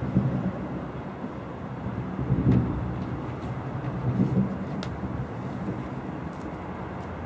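Distant fireworks shells bursting: dull, muffled booms come three times, a couple of seconds apart, over a steady low rumble, with a few faint crackles.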